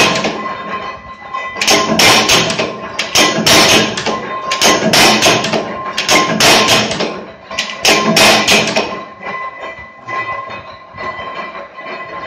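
Coin-stamping die press striking a silver strip, punching and stamping one-gram silver coins. Clusters of sharp metallic strikes come about every second or two, stop after about eight seconds, and leave a lower steady mechanical noise. A steady high tone runs underneath.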